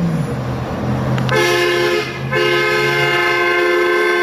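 Red Hummer H2 sounding a loud multi-tone horn in two blasts, a short one about a second in and a longer held one from about two and a half seconds, over its engine running low underneath.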